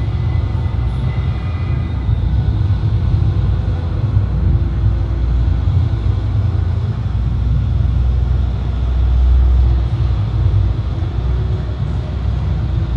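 A steady, loud low rumble with a faint hiss over it, with no distinct events.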